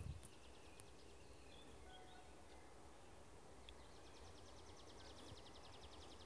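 Near silence: quiet rural outdoor ambience with a faint low rumble. From about two-thirds of the way in, a faint rapid, even trill of about ten strokes a second, from a bird or insect.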